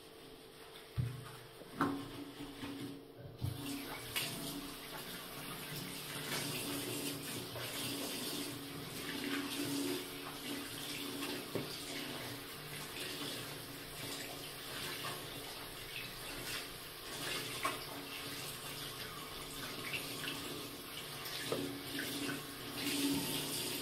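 A few light knocks, then a bathroom sink tap turned on about three and a half seconds in, running steadily and splashing over soapy hands into the ceramic basin.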